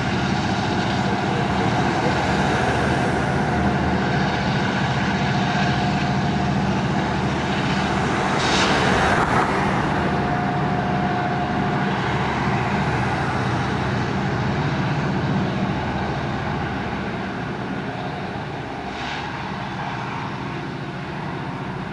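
Diesel freight locomotive's engine working with a steady low drone as it hauls a train of tank cars away, fading over the last several seconds. A rushing swell rises and falls about nine seconds in.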